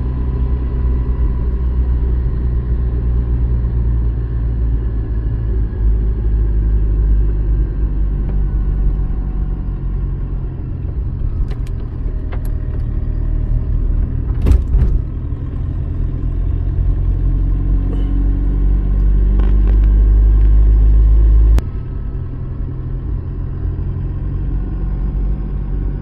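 Car cabin road noise while driving: a steady low rumble of engine and tyres, with a few sharp clicks and a short knock about halfway through. The rumble drops off suddenly about three-quarters of the way in.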